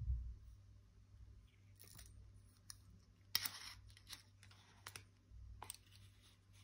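Metal ballpoint pens clicking and tapping as they are handled and laid down on a table: a scattered handful of light, sharp clicks, the loudest about three and a half seconds in, after a dull low thump at the start.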